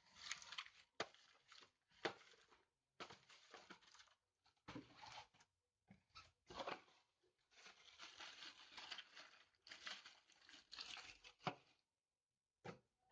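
Cardboard box and plastic-wrapped packs of firecrackers being handled and rustled, in irregular bursts with a few sharp clicks.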